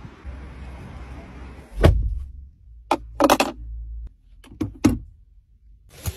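Car door shutting with a solid thunk about two seconds in, followed by several shorter clicks and rustles from inside the cabin.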